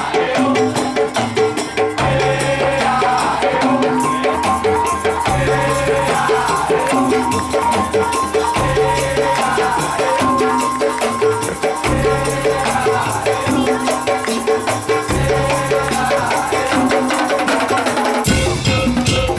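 Madurese daul (tong-tong) ensemble playing: drums, rattles and pitched tuned percussion in a dense, driving rhythm, with a bass figure that repeats roughly every one and a half seconds. About eighteen seconds in, the sound shifts to a heavier, fuller bass.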